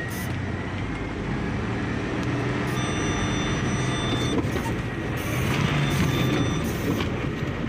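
Diesel engine of a HOWO dump truck heard from inside the cab, running steadily in third-low gear on a dirt road. About six seconds in, the driver works the gear lever to change gear.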